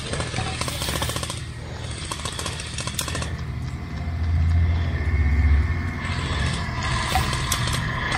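Airsoft guns firing in rapid automatic bursts, a fast rattle of clicks, over a low wind rumble on the microphone that swells in the middle.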